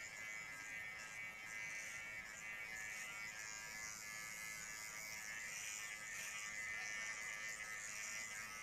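Xiaomi Enchen Sharp 3S cordless hair clipper running with a steady, even electric buzz.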